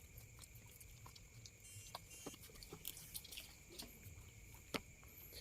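Near silence: a faint, steady high-pitched whine with scattered small clicks and taps, one a little sharper near the end.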